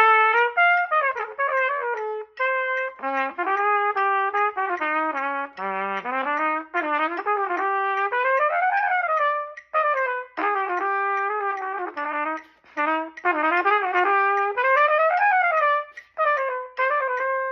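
Trumpet playing a fast passage of quick notes and rising and falling runs, in phrases broken by short breaths. It is a practice run-through of the piece's fast section.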